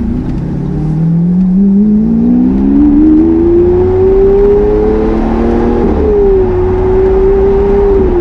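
Lamborghini Aventador's V12 accelerating under throttle: the engine note climbs steadily for about five seconds, drops a step about six seconds in as it shifts up, then holds steady.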